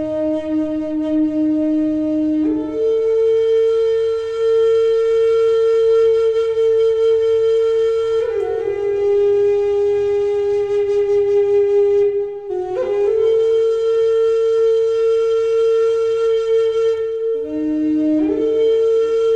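Native American flute in low D, made of Western cedar, playing a slow melody of long-held breathy notes. It opens on the low note, leaps up and holds, steps down a little about eight seconds in, and climbs back about thirteen seconds in. Near the end it drops briefly to the low note and leaps up again, with short breath breaks between phrases.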